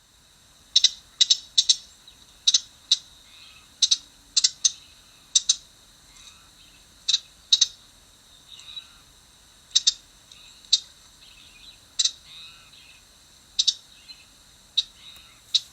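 Ruby-crowned kinglet giving its harsh two-parted call notes: short, sharp, high-pitched notes, often in quick pairs, repeated irregularly about every half second to second and a half.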